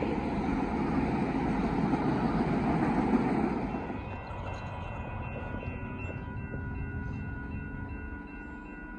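Freight train cars rolling past in a loud, steady rumble that drops away after about three and a half seconds. Then a railroad grade-crossing warning bell rings steadily as the crossing signals activate and the gates lower.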